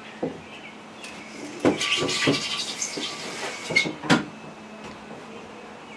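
Hands working an adhesive screen repair patch and the window screen: a scratchy rustling for about a second and a half, with a few sharp clicks.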